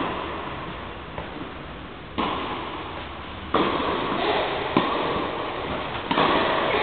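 Tennis rally: racket strings striking the ball about every second and a half, each hit sharp and followed by a lingering echo, over a steady hiss of background noise.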